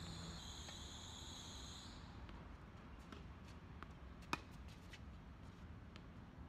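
Insects trilling steadily in two high, even bands, stopping about two seconds in; then scattered faint ticks and one sharp crack a little past four seconds as a tennis ball is struck with a racket.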